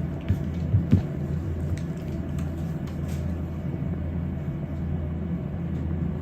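Steady low hum, with a few faint taps in the first few seconds.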